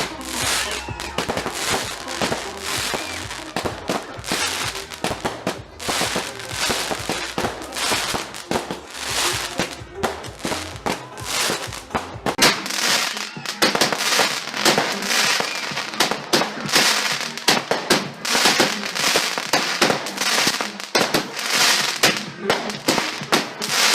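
Consumer fireworks going off in rapid succession: a dense, continuous run of bangs and crackles from a display barrage.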